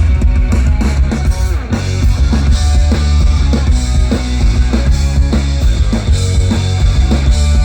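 Instrumental intro of a loud rock song, with a heavy bass line and driving drum kit.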